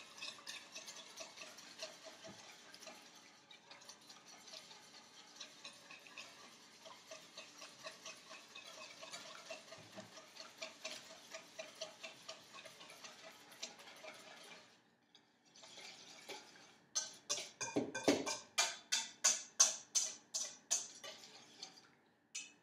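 Fork beating eggs with ham and cheese in a stainless steel mixing bowl: a steady run of quick, light clinks against the bowl, a short pause, then louder, slower strokes about two or three a second that ring off the steel near the end.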